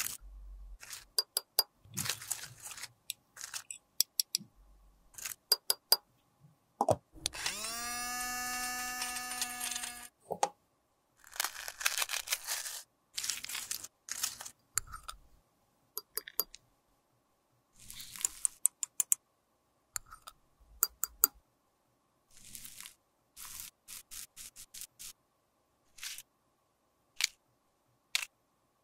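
A metal spatula and tweezers clink and scrape against glass and crunch through crushed pressed-powder makeup, giving scattered sharp clicks and short gritty scrapes. About a quarter of the way in, one steady squeal lasts about three seconds.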